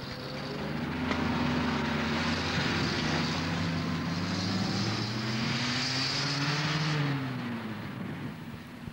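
Truck engine running as it drives off, louder from about a second in; its pitch rises and then drops around seven seconds in before the sound fades.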